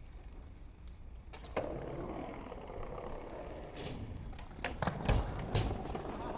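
Skateboard rolling: wheel noise starts suddenly about a second and a half in and carries on, with several sharp clacks and low thumps from the board near the end.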